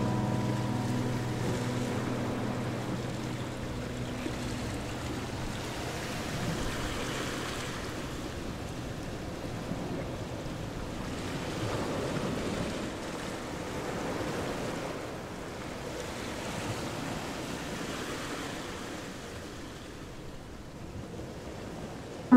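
Steady rush of wind and road noise from a moving car, swelling and easing slowly. Background music fades out over the first few seconds.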